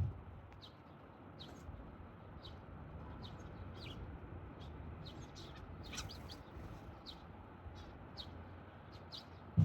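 Sparrows chirping: short high chirps repeated about two or three times a second over a low background rumble. A dull low thump sounds at the start and again near the end.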